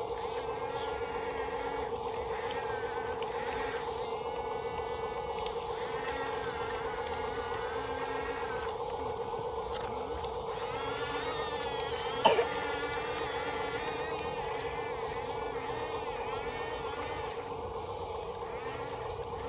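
RC bulldozer's small electric motors and gearbox giving a steady whine, with wavering, warbling higher tones coming and going over it. A single sharp click about 12 seconds in.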